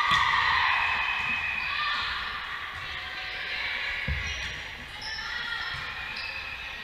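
A volleyball smacked on an overhand serve, then a rally with a heavy thud about four seconds in, in a gym's echo. Players and spectators call out throughout.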